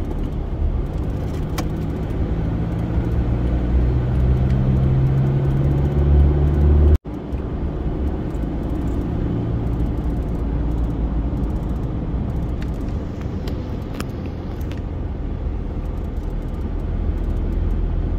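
Road noise heard from inside a moving car on a highway: a steady low rumble of engine and tyres. The engine hum grows louder, then cuts off suddenly about seven seconds in, and the steady rumble resumes.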